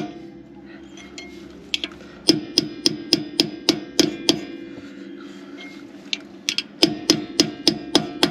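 Hammer striking a steel punch to tap a caravan wheel hub's grease cap into place: sharp metallic taps in quick runs of about three to four a second, with lighter, sparser taps in the middle.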